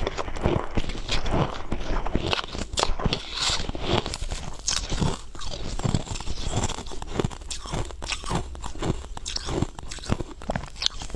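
Close-up crunching and chewing of a mouthful of crunchy, icy food: a quick, uneven run of crisp crunches as it is bitten and chewed.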